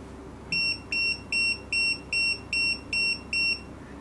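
Retekess TD158 guest pager sounding its alert: eight quick, even electronic beeps, about two and a half a second, starting about half a second in. The quick rhythm is the pager's buzzing mode set to fast speed (mode 3).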